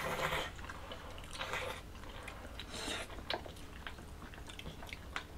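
Jjajangmyeon noodles in black-bean sauce being slurped and chewed: three short slurps about a second and a half apart, with small clicks between them.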